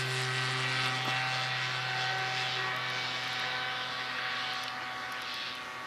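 Electric motor and propeller of a 1.4 m RC Cub model airplane flying overhead, a steady drone that grows a little fainter towards the end.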